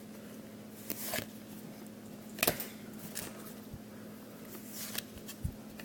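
Faint rustles and slides of trading cards being handled and flipped one at a time, with a sharper card snap about two and a half seconds in. A faint steady hum lies underneath.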